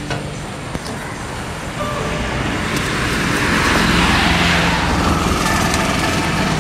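Road traffic: a motor vehicle's engine and tyre noise builds as it approaches and passes close by, loudest about four to five seconds in.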